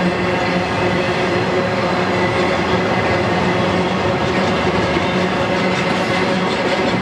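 Double-stack intermodal freight cars rolling past at steady speed, their steel wheels running on the rails with a continuous, even noise.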